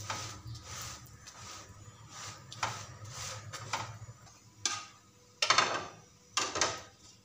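A spatula scraping and knocking on a tawa as an aloo paratha is turned over on it. Three louder scrapes come after about four and a half seconds.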